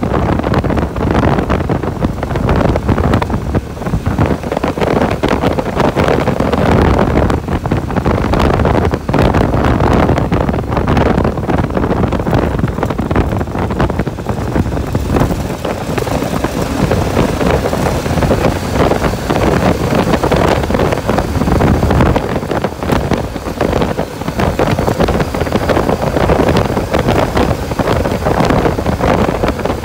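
A motorcycle riding along a gravel road, its engine and tyres under heavy, gusting wind noise on the microphone.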